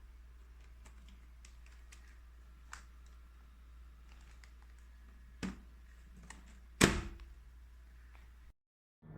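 Scattered light clicks and taps over a low steady hum, with two sharper knocks, the second, about seven seconds in, the loudest.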